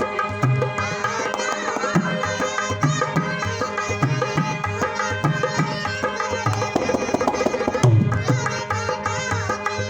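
Rajasthani folk song: a steady hand-drum beat with a wavering melody line above it.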